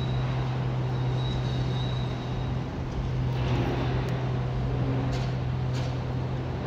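A heavy machine's engine running steadily at a constant pitch. A few faint knocks come in the second half.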